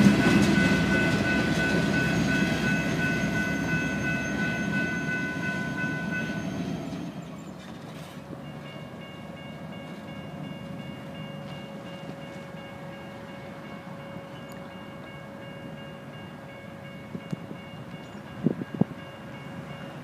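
Freight train gondola cars rolling past, a loud rumble of wheels on rail with steady ringing tones over it, fading out about seven seconds in. Then a railroad grade crossing's warning bell rings steadily and evenly, with a few sharp knocks near the end as the gate arm starts down.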